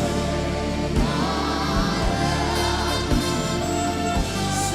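Live gospel worship song: held sung notes over a band accompaniment with a steady beat.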